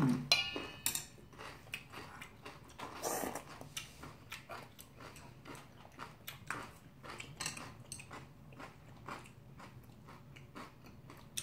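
Two people eating bibimbap with noodles close to the microphone: chewing and slurping, a dense run of short wet mouth clicks and smacks, with a longer slurp about three seconds in.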